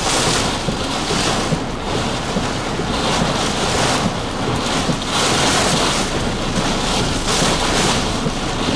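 Severe thunderstorm wind gusting against a parked vehicle, heard from inside, a loud steady rush that swells and eases every second or two.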